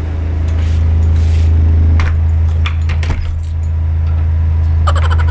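A steady low hum throughout, with a few sharp clicks about two and three seconds in and a quick rattling cluster of clicks near the end.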